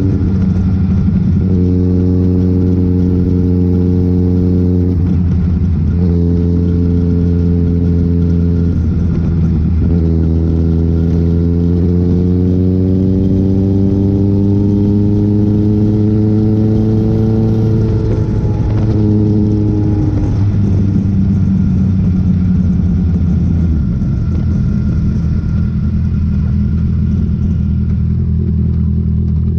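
A motor vehicle's engine running on the road under a steady low rumble. Its pitch steps up and down a few times, climbs steadily for several seconds, then drops about eighteen seconds in.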